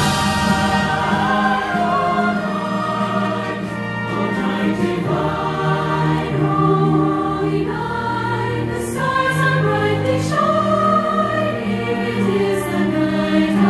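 A large choir sings with an orchestra, holding long sustained chords that change every couple of seconds.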